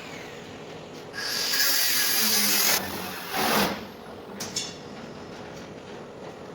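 A power tool working on sheet metal in two bursts: a longer run of about two seconds whose motor pitch sinks under load, then a shorter burst, followed by a couple of light clicks.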